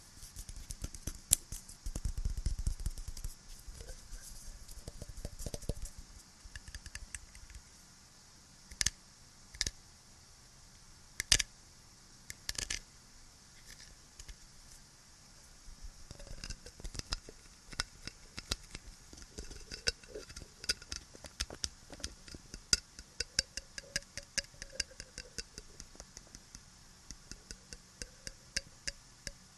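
Close-miked scratching and tapping on small objects. There is a stretch of dense scratching a couple of seconds in, then a few sharp separate clicks, then from about halfway quick runs of light clicks and taps, all over a steady background hiss.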